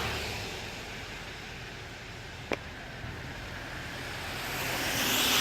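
Car noise with the hiss of tyres on wet pavement, fading away and then building again near the end; a single sharp click about two and a half seconds in.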